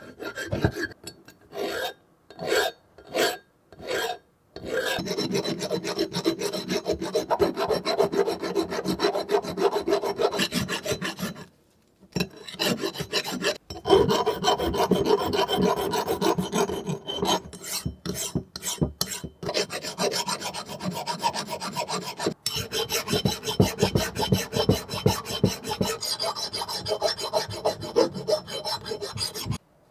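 Round hand file rasping over cast-iron bench vise parts in rapid back-and-forth strokes. There are a few separate strokes in the first few seconds, then long runs of filing broken by brief pauses.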